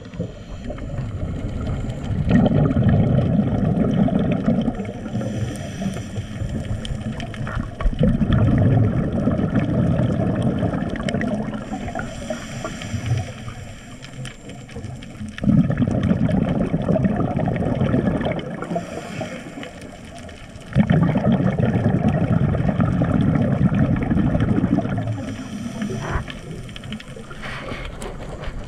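Muffled underwater sound through a camera housing: four long rumbling surges about six seconds apart, with a fainter hiss between them, the rhythm of a scuba diver's exhaled bubbles and regulator breaths.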